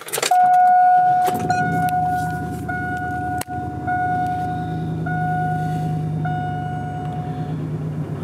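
2001 GMC Sierra 2500HD pickup's engine cranking briefly, catching about a second in and settling into a steady idle. A dashboard warning chime beeps in about six long tones over it and stops near the end.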